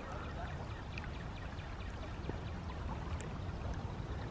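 Steady rush of flowing water, with a few faint ticks and clicks over it.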